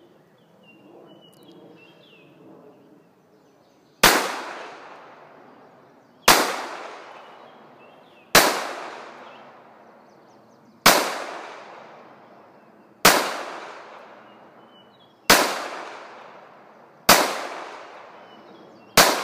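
Eight shots from a Sig Sauer TacOps .45 caliber pistol, slow aimed fire about two seconds apart, starting about four seconds in, each shot ringing off in a short echo.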